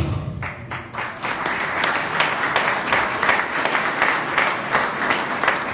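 Audience applauding: many hands clapping at once, a dense, steady patter of claps.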